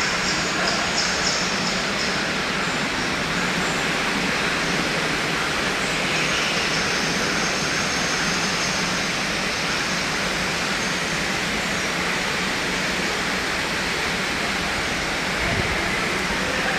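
Steady rush of water from an artificial waterfall splashing into a pool, with faint high chirps in the first couple of seconds.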